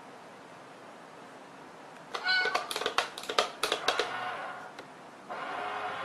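A domestic cat meowing, starting about two seconds in among a run of sharp clicks, then a longer, steadier call near the end.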